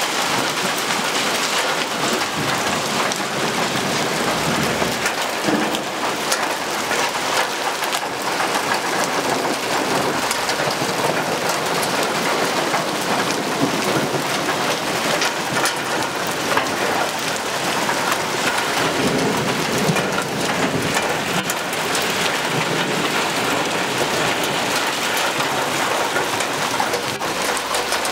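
Hail pelting down on pavement: a dense, steady hiss of falling hailstones, with many small sharp ticks from individual stones striking the ground.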